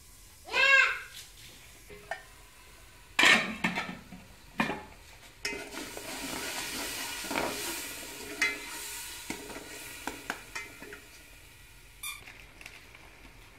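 A steel pot lid is lifted with a loud ringing scrape about a second in, followed by clanks of metal on metal. Oil and masala sizzle in the steel pot while a metal slotted spoon stirs and clinks against its sides.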